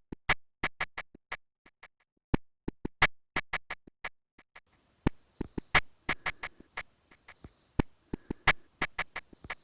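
Intro music made of a sparse electronic beat: sharp clicks and ticks, several a second, with short silences between them.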